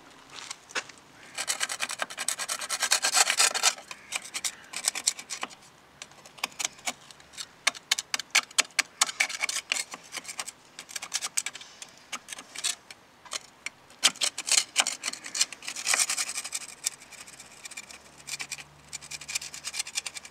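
Metal scraper blade scraping barnacles and marine growth off an outboard motor's metal bracket, in quick rasping strokes: a long run about a second in, then many short separate strokes, and another long run later on. The growth has been softened with a barnacle remover and comes away easily.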